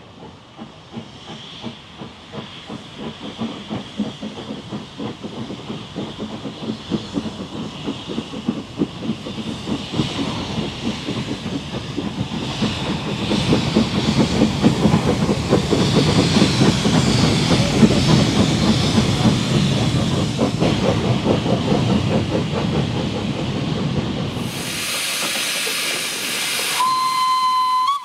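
Steam locomotive working a freight train of hopper wagons, its exhaust beats building in loudness as it approaches and passes, then easing into a steady hiss of steam. Near the end comes a short steam whistle blast.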